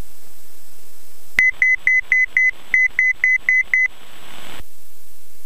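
Cockpit altitude alerter sounding two runs of five short high beeps, about four a second, as the plane nears its selected altitude of 3,500 ft. A brief rush of hiss follows and cuts off suddenly.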